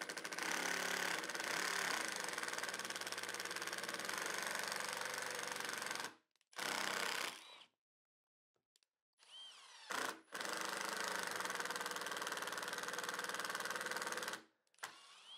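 Milwaukee cordless impact driver hammering a pocket hole screw into oak. It runs for about six seconds, gives a short burst and a brief start, then runs for about four seconds more. The screw is stripping the wood and spinning in place rather than snapping its head off.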